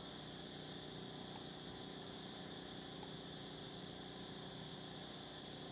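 Steady background noise: an even hiss with a constant high band and a low hum, unchanging throughout, with no distinct sounds standing out.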